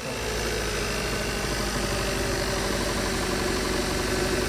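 2016 Kia Soul's 1.6-litre four-cylinder engine idling roughly with a misfire (code P0300), which the owner traced to faulty ignition coils on cylinders 3 and 4. The running sound comes in abruptly at the start and stays steady.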